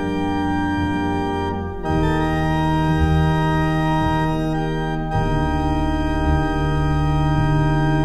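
Organ music playing long held chords, moving to a new chord about two seconds in and again about five seconds in.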